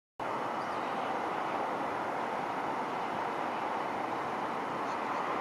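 Steady background noise of distant city road traffic, an even hum without distinct events.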